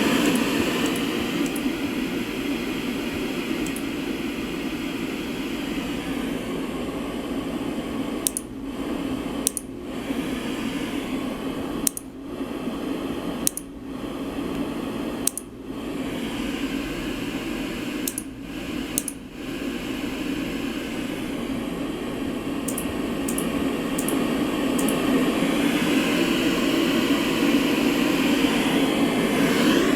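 LectroFan white noise machine playing a steady fan-like noise. In the middle it briefly cuts out several times, some of the gaps marked by faint clicks, and its tone is duller there than at the start and end.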